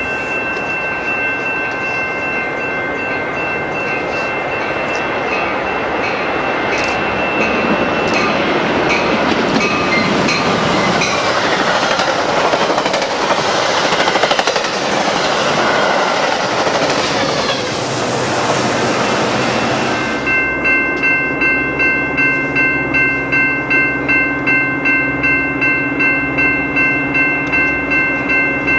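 Metra commuter train of stainless-steel bilevel cars passing at speed. A rush of wheels on rail builds to a peak in the middle and stops abruptly about two-thirds of the way through. A bell with several steady high tones rings underneath it, pulsing about twice a second near the end.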